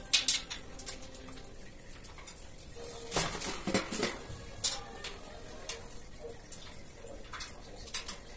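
Steel shelf rack being handled during assembly: scattered light metallic clinks and knocks from the frame and mesh panels, with a louder, rougher stretch of about a second around three seconds in.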